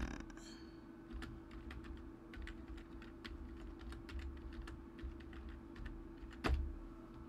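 Typing on a computer keyboard: a run of quick key presses, with one louder keystroke about six and a half seconds in.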